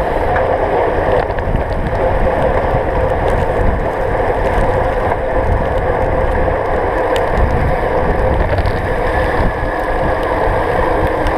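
Steady rush of wind buffeting a bicycle-mounted action camera's microphone, mixed with the hiss of road-bike tyres spraying over a rain-soaked road.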